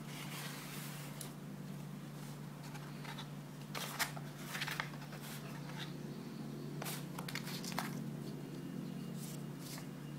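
Cardboard box and paper packaging being handled while a bundled USB cable is lifted out: scattered brief rustles and light knocks, a few at a time, over a steady low hum.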